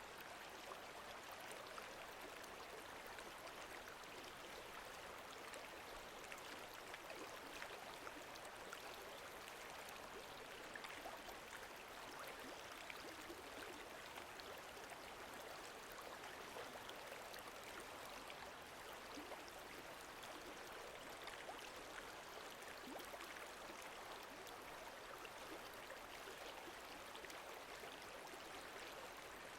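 Faint, steady lake water lapping, a continuous soft wash dotted with many tiny splashes.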